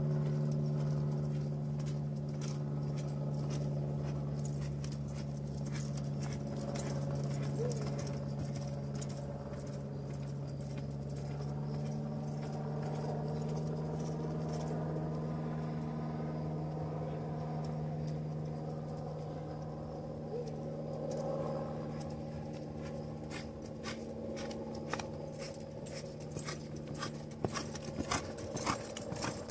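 Quarter Horse mare loping in a sand arena: muffled hoofbeats and jingling tack, clearer near the end as the horse passes close. Under them runs a steady low engine hum.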